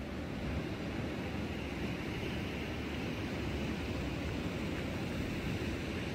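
Gulf surf breaking on the beach, a steady rushing hiss, with wind rumbling on the microphone underneath.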